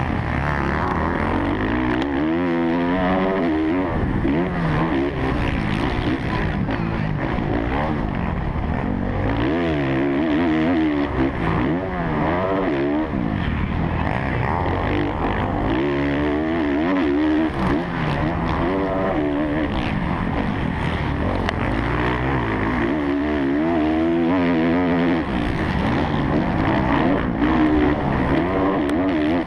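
Kawasaki KX450F motocross bike's single-cylinder four-stroke engine heard onboard at race pace, its revs climbing and dropping every second or two as the throttle is opened and shut.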